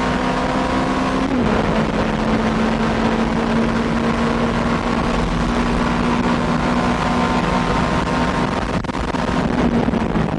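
Nissan R90CK's twin-turbo V8 running hard at high, nearly constant revs, heard onboard with heavy wind and road noise. The pitch dips briefly about a second in, then holds steady.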